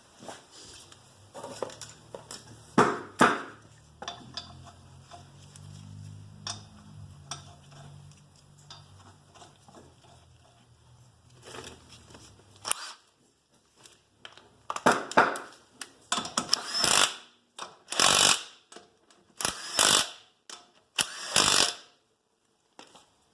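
A few metal knocks, then about six short bursts from a power tool, in keeping with lug nuts being spun onto the wheel studs of a car's front wheel.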